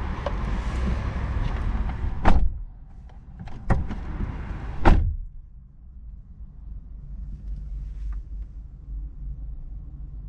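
Three sharp clunks from the 2025 Toyota Corolla's interior mechanisms, spread over about two and a half seconds. A steady rushing noise stops abruptly at the first clunk, and a quiet low hum follows.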